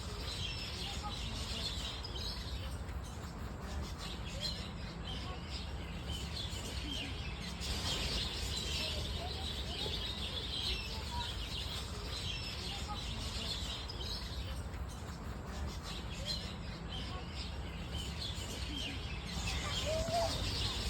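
Many birds in an aviary chirping and twittering continuously, with a steady low rumble underneath.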